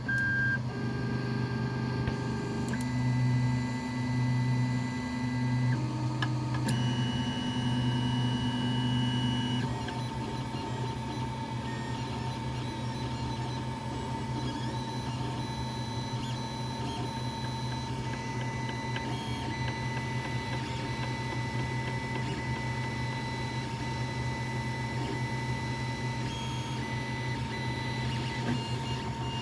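Creality Ender 3 Pro 3D printer running, its stepper motors whining at steady pitches that jump to new pitches every few seconds as the axes move, over a low pulsing hum. The printer makes weird knocking sounds. About ten seconds in, the motor whines drop out and it settles into a quieter, steady running sound.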